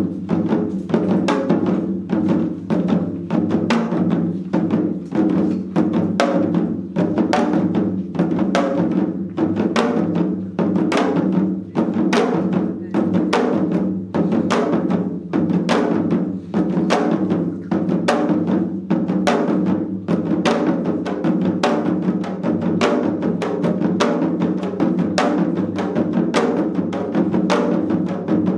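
Ensemble of four janggu, Korean hourglass drums, played together in a seoljanggu piece: rapid, sharp stick strokes over deeper drum beats in a steady, continuous rhythm.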